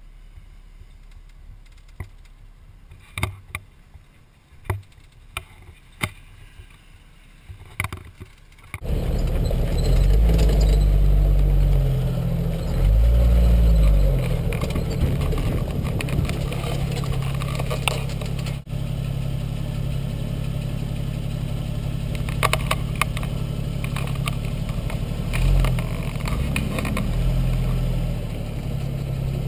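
A few sharp clicks and knocks over a low background, then suddenly a Jeep engine running loud and steady on a trail. Its pitch rises and falls a few times just after it comes in, with scattered rattles on top.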